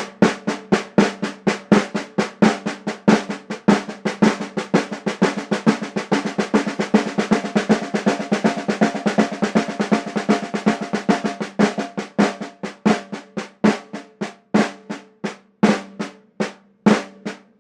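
Snare drum played with sticks in the Swiss Army triplet rudiment, a repeating flam–right–left figure at a brisk tempo. The strokes run densely for most of the time, then thin out to a slower, more spaced pattern in the last few seconds.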